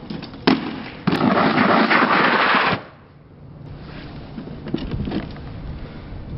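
A briefcase hitting asphalt with a sharp knock, then a loud scrape of about two seconds as it slides across the ground and stops abruptly.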